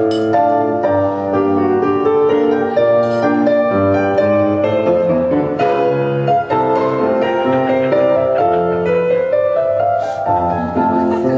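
Piano music playing steadily, with chords and a moving melody.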